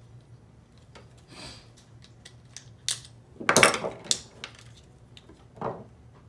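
Scattered clicks, taps and knocks of a plastic frying-pan handle and an epoxy syringe being handled on a wooden table while epoxy is squeezed into the handle. There is a short rustle about a second and a half in and a cluster of louder clicks and knocks around the middle.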